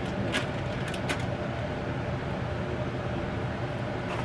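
A few light metal clicks as a fork works a slab of ribs loose from the inside of an electric smoker, over a steady low background hum.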